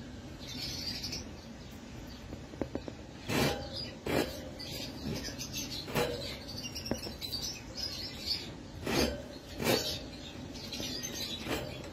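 Lovebirds chirping: a handful of short, sharp calls a second or more apart, with softer high twittering between them.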